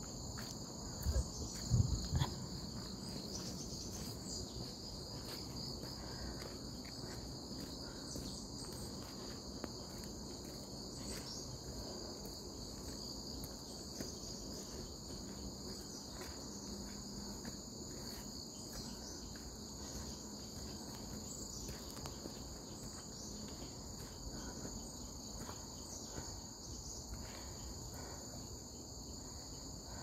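Steady chorus of insects trilling at two high pitches, with a few low thumps about one and two seconds in.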